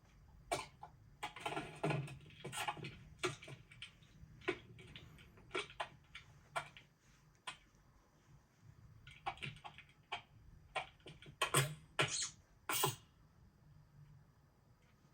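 An irregular string of small clicks, knocks and clatters, like objects being handled and set down, with a few louder knocks near the end.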